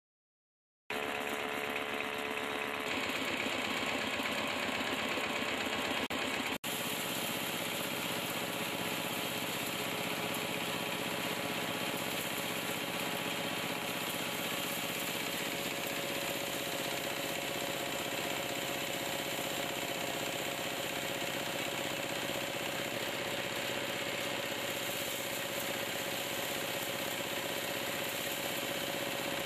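Power tiller engine driving a pulverizer as grain kernels are fed into its hopper: a steady mechanical running noise with a fine, even pulse. It starts after about a second of silence and breaks off for an instant about six and a half seconds in.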